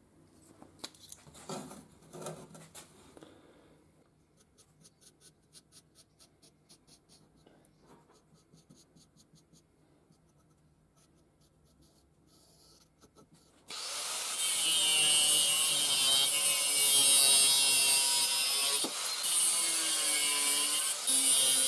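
Faint handling clicks and light, rhythmic scratching of a paint marker tracing an outline on a rusty steel bar. About two-thirds of the way in, an angle grinder with a cut-off disc bites into the steel and cuts steadily, loud and continuous.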